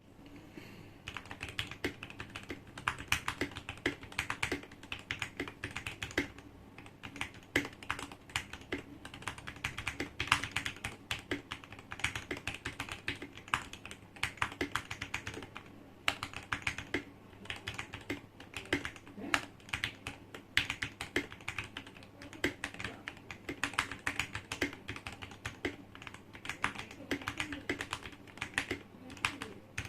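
Fast typing on a Tecware Phantom Elite 87 TKL mechanical keyboard with lubed Gateron KS-9 black linear switches, tempest-tape and foam mods, and concrete keycaps. Dense keystrokes run on steadily with a few brief pauses.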